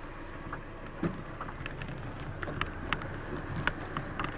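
Steady water and wind noise around a small boat, with scattered small clicks and knocks, the loudest about a second in.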